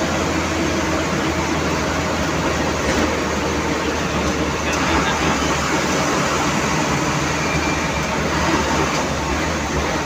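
Cabin noise of an old bus on the move: the engine's steady low drone mixed with road and body noise.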